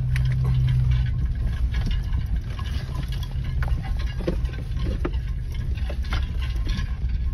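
Truck engine running low and slow while driving over a rough, rocky dirt track, heard from inside the cab, with frequent knocks and rattles from the bumpy ride.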